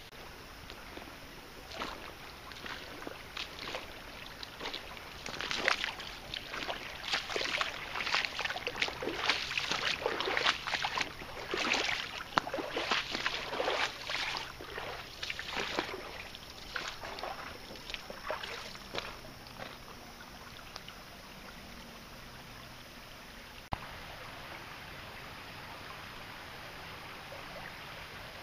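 Shallow creek water splashing and sloshing over rock close to the microphone, in irregular bursts that build to the middle and die away. After a cut near the end, a steady, even rush of creek water.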